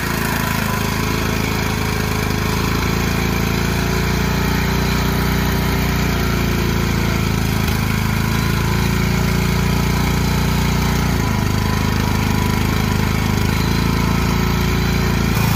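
Riding lawn tractor's small engine running steadily as the tractor drives over rough ground, its note shifting slightly about eleven seconds in.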